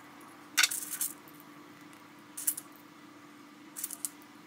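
Small metallic clicks of loose steel bearing balls being handled and pressed into the ball track of a linear carriage block. They come in three brief clusters, the loudest about half a second in, over a faint steady hum.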